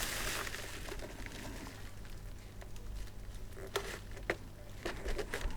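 Faint handling of a plastic toy football game, with a few light plastic clicks and taps in the second half over a low steady hum.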